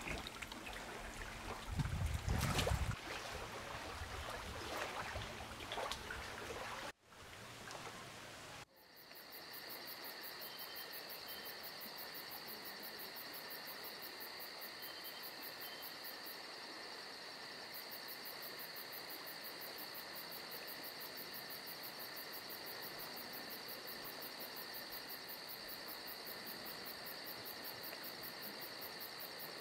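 Wind rustling through leaves, with a gust buffeting the microphone about two seconds in. After a cut near eight seconds, a steady, evenly pulsing chorus of insects trilling at dusk takes over.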